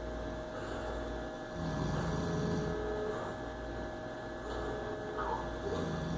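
A person snoring in their sleep: two low snores, each about a second long and about four seconds apart, over a steady electrical hum.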